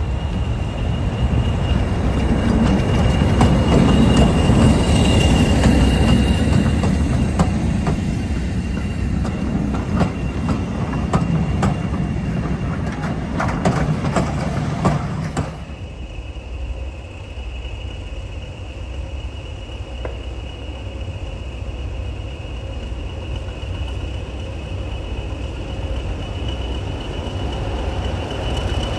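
A diesel locomotive-hauled heritage train running past, with a heavy engine rumble and rapid clicks of wheels over rail joints. A steady high whine runs throughout. The sound drops sharply about halfway through to a quieter rumble that builds again near the end.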